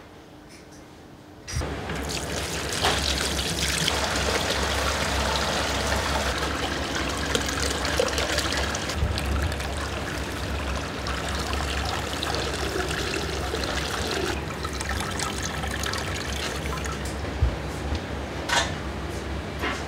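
Liquid trickling and pouring as a cook strains it through a cloth into a steel pot, starting about a second and a half in after a quiet moment, over a low steady hum.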